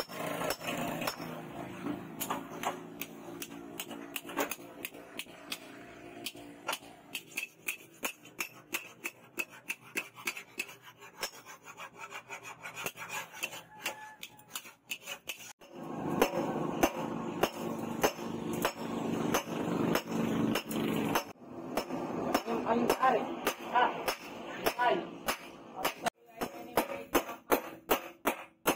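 Hand hammer striking a red-hot steel knife blade on a steel-post anvil: forging blows in quick succession, with short pauses between runs.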